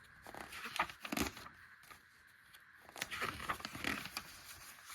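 Paper pages of a printed catalog being handled and turned, two rustling page turns about three seconds apart.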